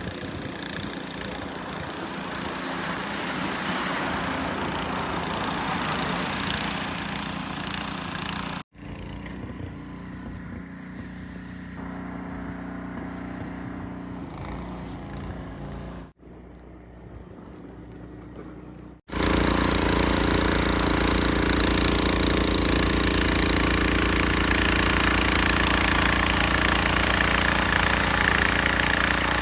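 An engine running steadily, heard in several separate clips; the last clip, from about two-thirds of the way in, is the loudest.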